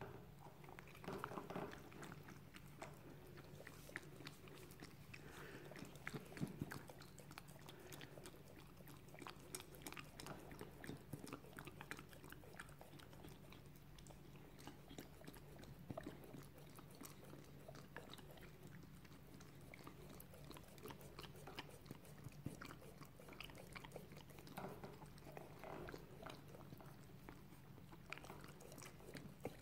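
A dog licking and chewing food out of a black rubber KONG toy: quiet, irregular wet licks, smacks and small tooth clicks on the rubber, a little louder in a few spells.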